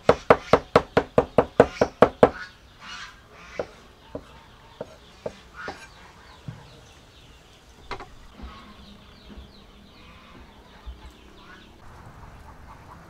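Meat cleaver chopping dried red sweet pepper on a wooden chopping block, rapid even knocks about five a second that stop about two seconds in. After that it is much quieter, with scattered faint bird calls and light knocks.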